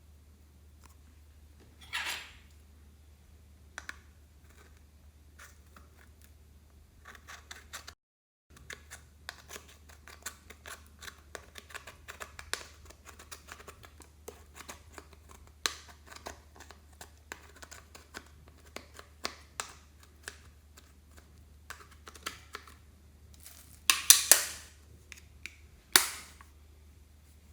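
Slime being worked by hand, giving a dense run of small sticky clicks and pops, with a few louder pops about two seconds in and near the end.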